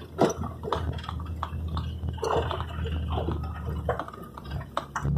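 Vehicle engine running with a low, steady hum, with many irregular clicks and knocks on top.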